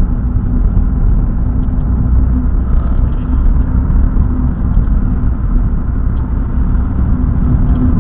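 Car driving along a road: a steady low rumble of engine and tyre noise, heard from inside the car through a dashcam's microphone.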